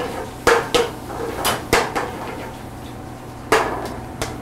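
Metal tongs clacking against a metal sauté pan while squid and octopus are stirred, over the sizzle of the frying seafood. There are about six sharp clacks, several in quick pairs.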